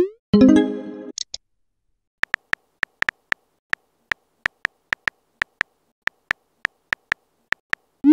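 Texting-app sound effects: a quick rising whoosh and a short chime-like tone about a second long as a chat message is sent, then a run of phone-keyboard tap clicks, a few per second, as the next message is typed.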